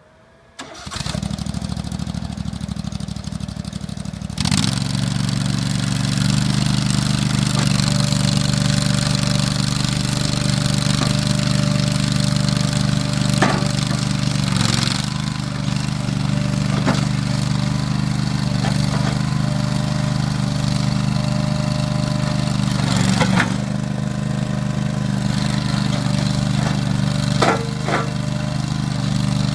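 Ditch Witch SK500 mini skid steer's engine being cranked by its starter for about four seconds, then catching and running steadily, with a few short clanks later on.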